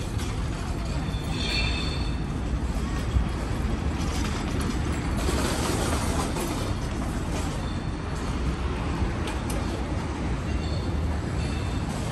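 City street noise with a train running on nearby tracks, a steady rumble that swells about halfway through. Faint high squeal tones come in twice, near the start and near the end.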